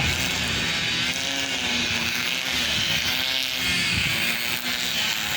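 GE U20C diesel-electric locomotives running, a steady engine hum with a band of hiss over it.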